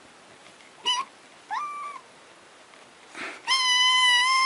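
Kitten meowing: a short meow about a second in, a second that rises then holds, and a long steady meow in the last second.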